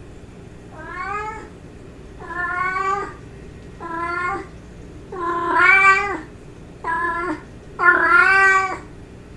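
Domestic cat meowing, six calls in a row about a second apart, some short and some drawn out with a bend in pitch.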